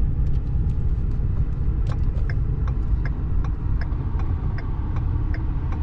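Steady low rumble of a vehicle driving slowly, heard from inside the cabin. Faint light ticks come roughly every half second.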